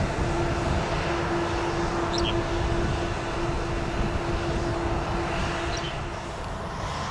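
Jet airliner's engines running, a loud steady rumble with a steady whining tone that drops out about six seconds in.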